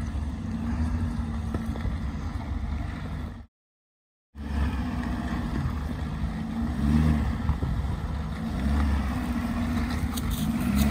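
2014 Ford F-250's 6.7-litre Power Stroke V8 diesel running at low revs as the truck crawls over rocks, a steady low hum that cuts out for about a second partway through.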